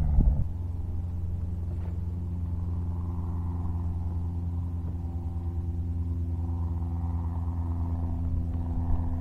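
A motor running steadily: a low hum with several steady higher tones, after a brief spell of loud handling noise that stops about half a second in.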